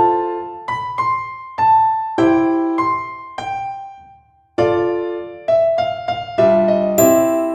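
Background piano music: a slow melody of single struck notes that ring and fade, dying away almost to silence about four seconds in before the playing resumes.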